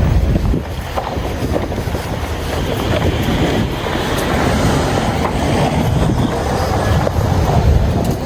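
Steady low rumble of a moving monorail train with a few faint clicks, with wind noise on the microphone.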